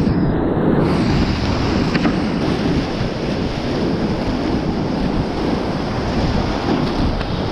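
Whitewater rapids rushing loudly and steadily around a kayak as it runs through churning waves, heard close up from the boat.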